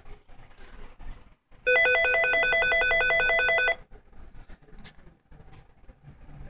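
Nortel 2616 digital desk phone ringing for an incoming call: one two-second burst of its electronic warbling ring tone about two seconds in.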